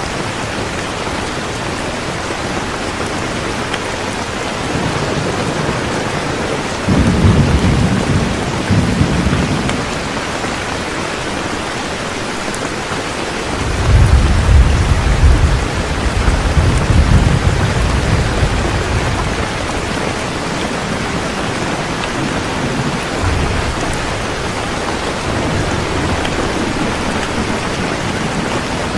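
Heavy rain falling steadily, with rolls of thunder: a rumble about seven seconds in, and a longer, louder one from about fourteen seconds in.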